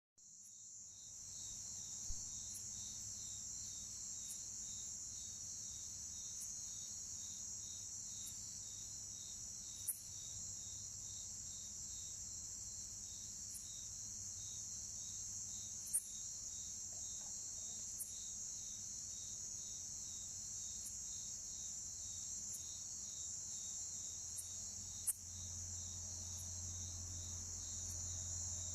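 Bucrates conehead katydids giving short, loud chirps at irregular intervals of a few seconds. Behind them runs a continuous chorus of other orthoptera: a steady high-pitched trill and a softer pulsing one.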